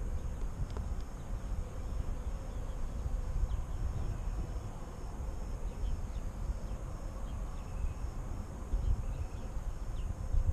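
Insects chirping in a faint, high, steady pulse about twice a second, over a low rumbling noise on the microphone.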